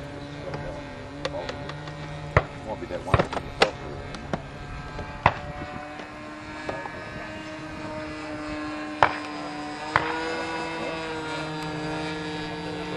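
Engine and propeller of a giant-scale RC Cessna model airplane running steadily in flight, its pitch wavering and rising a little about ten seconds in. Several sharp clicks cut across it.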